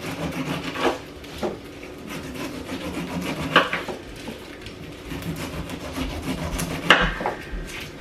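Kitchen knife cutting the rind off a whole pineapple, with rubbing, scraping cuts and a few sharp knocks of the blade on the wooden board, the loudest about seven seconds in.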